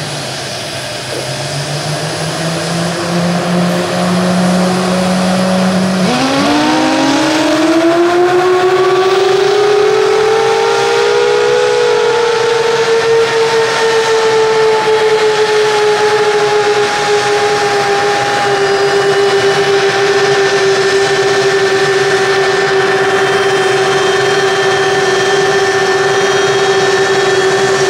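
F-15J Eagle jet engine starting: a steady whine, then about six seconds in a new whine that climbs in pitch for several seconds as the engine spools up and settles into a steady idle whine, growing louder.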